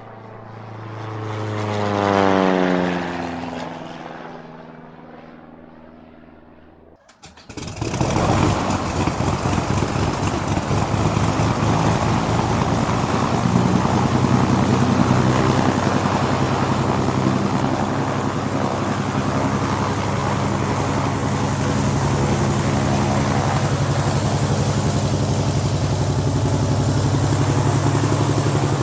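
A propeller airplane's piston engine passing by: it swells to its loudest about 2 seconds in, then fades as its pitch drops. About 7 seconds in, a close propeller engine starts suddenly and runs steadily and loudly.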